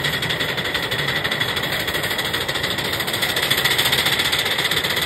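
5-inch gauge live steam War Department Austerity 2-10-0 locomotive chuffing under way, its exhaust beats coming rapid and even. The chuffing grows a little louder about three and a half seconds in.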